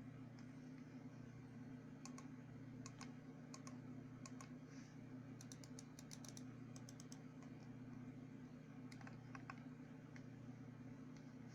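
Keys being typed on a Motospeed CK888 mechanical keyboard: quiet scattered keystrokes, a quick run of them in the middle and a few more later, over a steady low hum.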